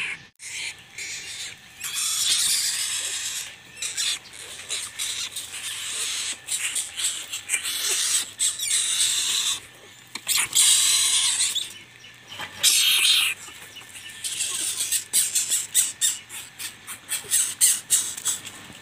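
Young coucals giving harsh, hissing rasps in bursts of about a second, among many sharp clicks and rustles from the dry leaf litter where they peck and move about. The clicks come thickest near the end.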